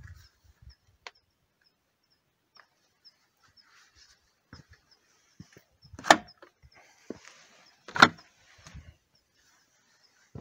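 Wooden hut door being unbolted and opened by hand: a black metal slide bolt and the door give two sharp clacks about two seconds apart, with smaller knocks and rattles around them.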